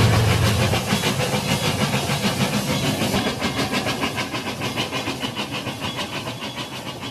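Toy freight train running along toy track, a rhythmic clicking of about four to five a second over a hiss, fading steadily as the train moves away.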